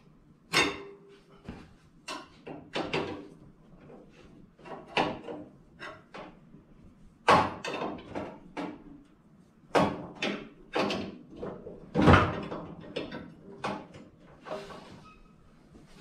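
Irregular knocks and clanks of metal parts being handled on a garden tractor, a dozen or so, the loudest about seven and twelve seconds in.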